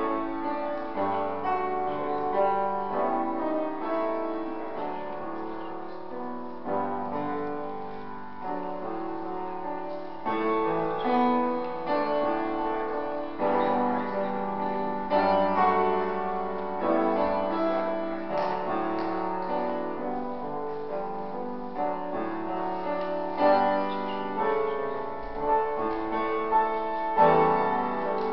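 Piano music: a slow melody over held chords and low bass notes.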